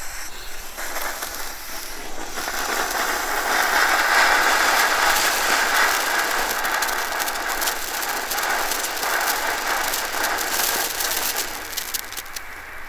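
Small category 1 consumer firework burning with a steady hiss and dense crackling. It swells about two seconds in and dies down near the end.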